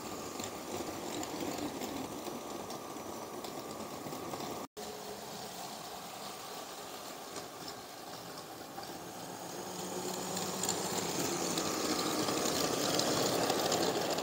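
Battery-powered LEGO City Passenger Train (60337) running along plastic track, its motor whirring and wheels clattering. There is a brief break about five seconds in, and it grows louder over the last few seconds as the train comes closer.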